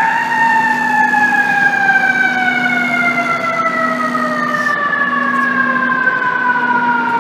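Fire engine siren winding down, its pitch falling slowly and evenly as the pumper drives away, over a low steady hum.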